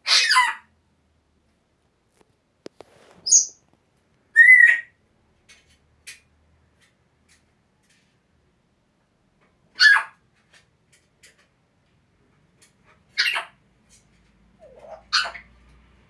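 African grey parrots giving short squawks and whistles, about seven calls spaced out with pauses of one to four seconds between them. The loudest come at the very start and about four and a half seconds in.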